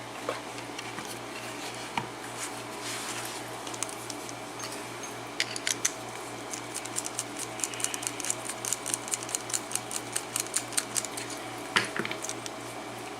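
Light metallic clicks and ticks from handling an opened Abus 72/40 padlock, turning into a quick run of small clicks, about five a second, through the second half. A steady low hum runs underneath.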